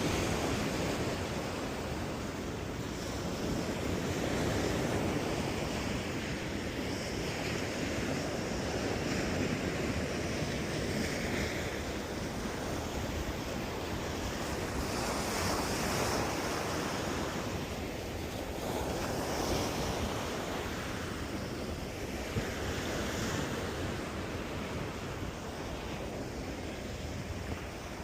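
Surf washing onto a sandy beach, a steady rush that swells and eases, with wind buffeting the microphone.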